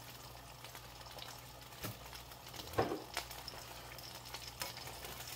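Anchovy oil heating in a frying pan on the stovetop, with faint crackling ticks over a steady low hum. A few louder ticks come near the middle.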